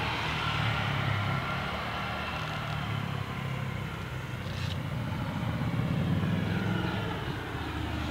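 Steady outdoor background rumble with a light hiss.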